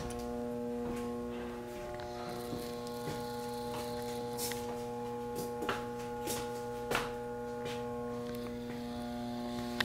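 Steady electrical hum made up of several tones at once, with a few faint knocks spread through it.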